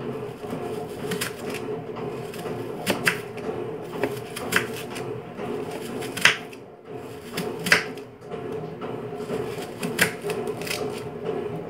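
Kitchen knife cutting an onion on a wooden cutting board: irregular sharp knocks of the blade on the board every second or two, over background music.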